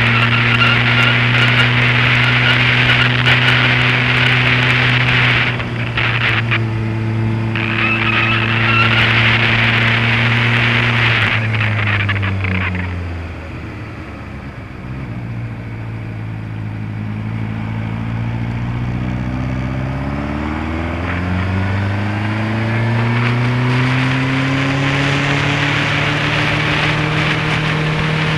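Honda CBF600S's inline-four engine heard from the bike while riding: it runs steadily, breaks off briefly about six seconds in, then falls in pitch as the bike slows for a bend around halfway. It rises again steadily as the bike accelerates out.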